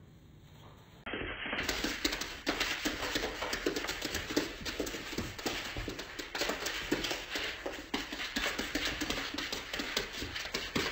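A piglet and a small black animal scampering and wrestling on a hardwood floor. From about a second in there is a rapid, irregular clatter of hooves and claws clicking on the wood.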